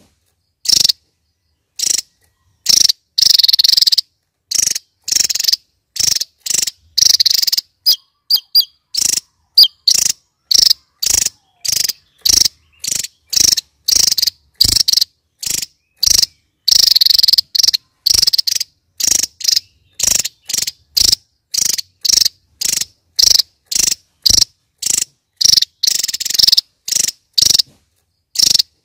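Javan tesia singing: short, high-pitched phrases repeated about twice a second, a few of them longer, with clean gaps between.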